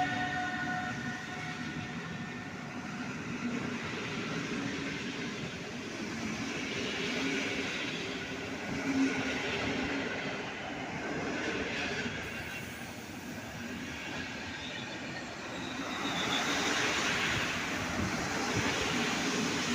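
A train moving through the station, with wheel-on-rail rolling noise. A few steady tones fade out in the first few seconds. The noise swells in the middle and again, louder, near the end.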